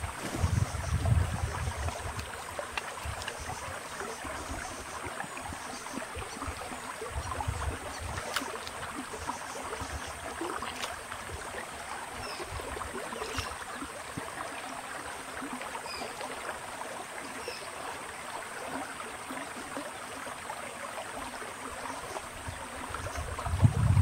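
Shallow river flowing over stones, a steady wash and trickle of water, with a few low bumps in the first couple of seconds.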